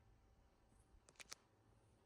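Near silence: room tone, with three faint clicks a little past a second in.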